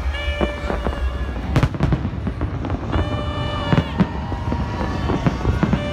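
Fireworks going off in a rapid, continuous volley of bangs and crackles, with the sharpest reports about a second and a half in and again near four seconds.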